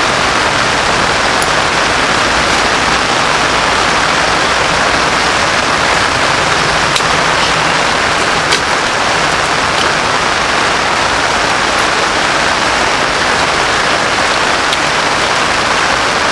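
Steady rain: an even hiss with a few sharper taps of drops.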